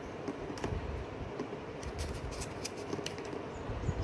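Scattered light clicks and rubbing as a Canon M50 Mark II camera body is turned over in the hands while its battery is fitted into the compartment under the open battery door.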